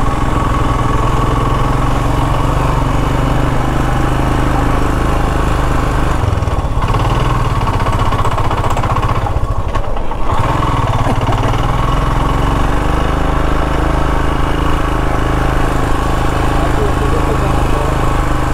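Royal Enfield Himalayan's single-cylinder engine running steadily under way as the bike climbs a hill road, heard from the rider's camera on the bike. The engine eases off briefly twice, about six and ten seconds in.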